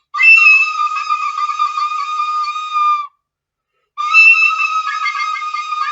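Two long, steady high-pitched tones, each held for about two to three seconds, with a sudden start and stop and a second of silence between them.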